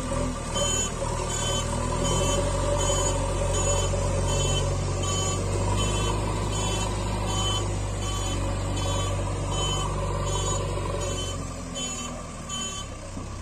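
Truck sound effect: a steady low engine hum with a reversing alarm beeping about every three-quarters of a second. The beeping and the hum stop shortly before the end.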